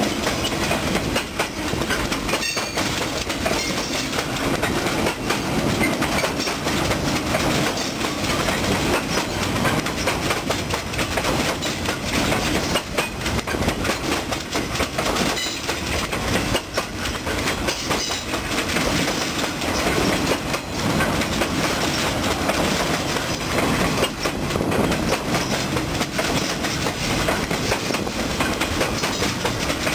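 Freight train rolling past, the steel wheels of its loaded flatcars clattering over the rail joints in a steady clickety-clack.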